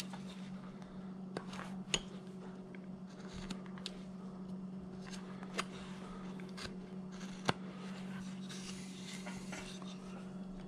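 Carving knife cutting a small wooden figure by hand: scattered short clicks and soft scraping as the blade makes stop cuts and pares away chips, with a few sharper snaps. A steady low hum runs underneath.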